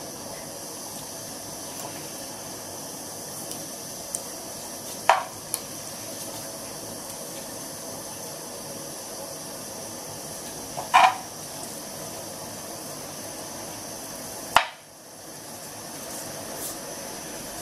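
Butter melting and sizzling in a nonstick frying pan, a steady hiss, while a metal spoon stirring it knocks against the pan three times.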